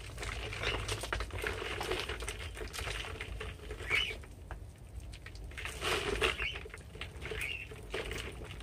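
Potting soil and roots rustling and crumbling as gloved hands work a pothos root ball free of its plastic pot, with scattered small scratches and crackles.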